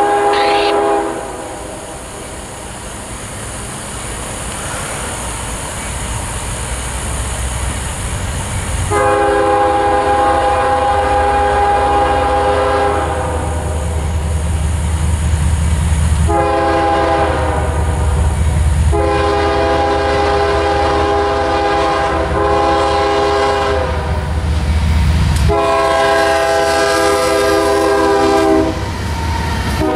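CSX freight train's diesel locomotive air horn sounding a series of long blasts as the train approaches, over the growing low rumble of its engines. The locomotives pass close by near the end.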